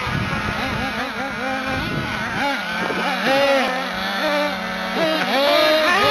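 Small two-stroke nitro engines of 1:8 scale RC buggies revving up and down, the pitch rising and falling with the throttle as the buggies accelerate and turn. A steady lower engine note under them stops about five seconds in.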